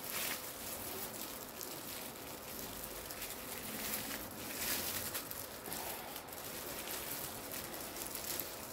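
Thin plastic roasting-sleeve film crinkling and rustling in the hands as its end is twisted and tied tight around a log of sausage mince, with irregular crackles.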